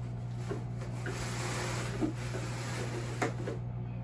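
Fabric rustling and rubbing as costume pants are pulled up over the leg poles, with two light knocks about two seconds and three seconds in. A steady low hum runs underneath.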